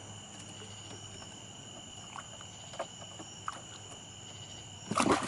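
Crickets singing steadily, an even high-pitched chirring, with a few faint ticks and a short noisy burst near the end.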